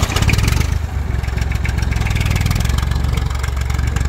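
IMT 539 De Luxe tractor's three-cylinder diesel engine running steadily just after starting, with an even, pulsing rumble.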